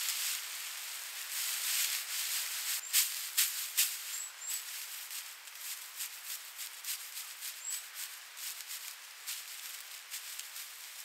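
Dry straw thatch rustling and crackling as hands push and smooth bundles of straw into a thatched roof, with a run of sharper crackles about three to four seconds in.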